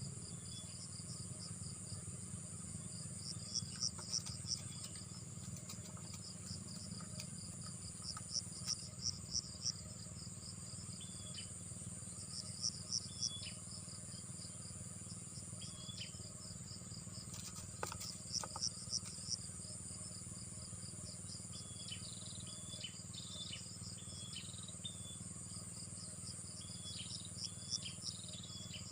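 Insects calling, crickets among them: a steady high-pitched trill with a group of louder rapid chirps every four or five seconds, and short higher chirps coming more often near the end.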